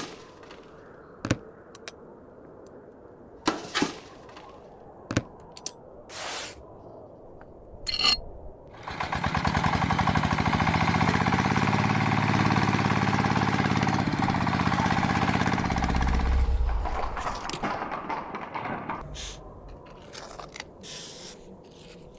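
A few sharp clicks and knocks, then a small motor runs steadily with a rapid rattle for about eight seconds before dying away.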